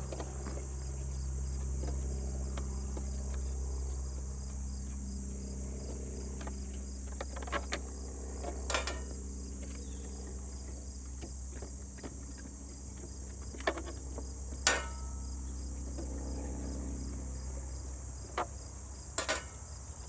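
Scattered sharp clicks and knocks of hands undoing the red plastic thumb screws on a DeWalt 735 thickness planer, about six in all, the loudest about nine, fifteen and nineteen seconds in. Under them runs a steady high chirring of crickets and a low hum.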